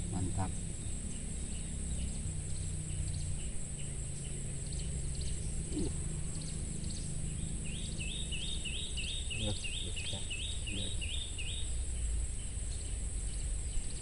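Outdoor rural ambience: a steady high-pitched insect drone. About eight seconds in, a bird repeats a short call about three times a second for some four seconds.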